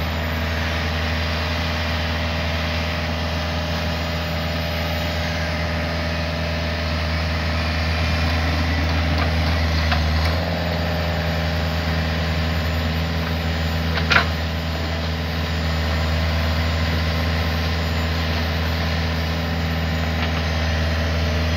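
Hitachi 48U mini excavator's diesel engine running steadily as it works, its note shifting slightly about ten seconds in. A single sharp knock about 14 seconds in.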